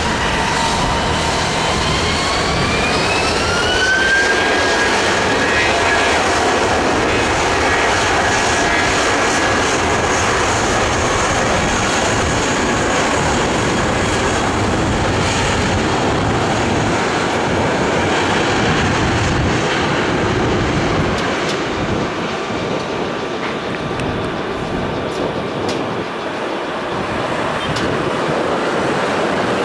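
Airbus A320-232's IAE V2500 jet engines spooling up, their whine rising over the first four seconds and then holding steady at takeoff thrust under loud jet noise. The noise eases a little about two-thirds of the way through and then builds again.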